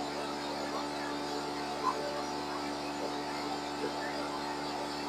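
Maize milling machine running with a steady, even hum, with a brief click about two seconds in.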